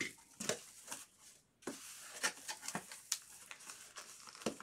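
Trading card boxes being handled: scattered light taps, clicks and rustles of cardboard and packaging, with a brief pause a little over a second in.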